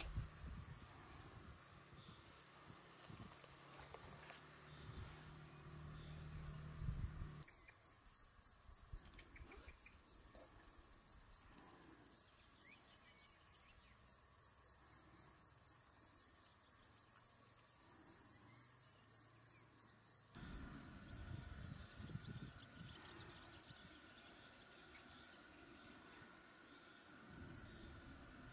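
Meadow insects chirring in a continuous, rapidly pulsing high-pitched trill.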